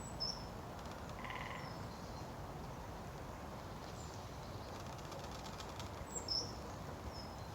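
Birds giving short, high chirps a few times over a steady low outdoor background hum, with a brief buzzy trill about a second in.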